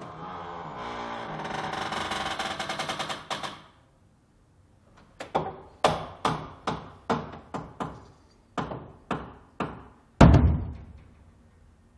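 Creaky hallway door hinge: one long creak made of rapid ticks for about three and a half seconds, then after a pause a run of about a dozen short sharp creaks, roughly three a second. About ten seconds in, the door shuts with a loud, deep thud, the loudest sound here.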